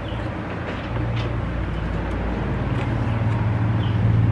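A steady low engine hum that grows slightly louder, with a few faint clicks over it.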